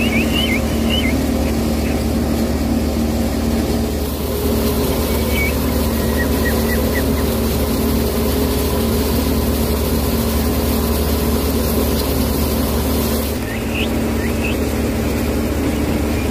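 Steady running of a small motor driving a miniature model rice mill, a continuous hum and whir with no change in speed. Brief high chirps come in now and then over it.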